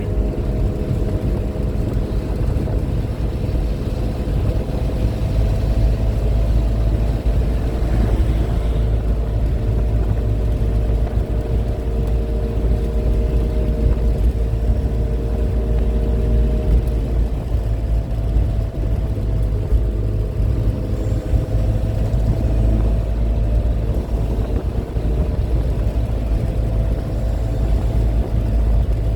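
MG Midget's four-cylinder engine running at a steady cruise, with heavy low road and wind rumble, heard from inside the small car; the engine note rises and falls only slightly.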